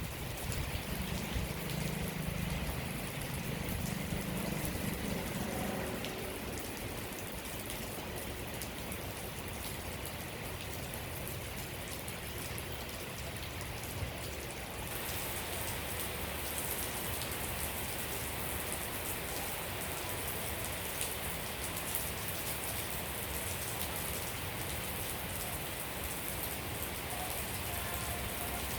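Steady rain falling and pattering on surfaces, an even hiss flecked with drop ticks. About halfway through it turns brighter and hissier and stays that way.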